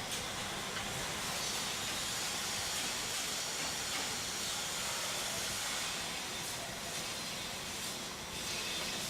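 Electric arc welding: the arc gives off a steady hiss.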